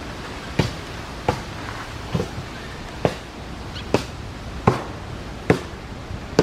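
Sharp single knocks repeating at an even pace, a little more than one a second, like steady chopping or hammering.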